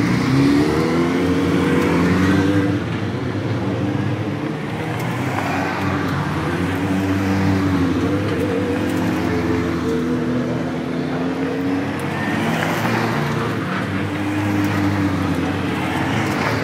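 Radical sports-prototype race cars' engines running at low revs as the cars pass slowly one after another, the engine pitch wavering up and down with a few short rises of the throttle.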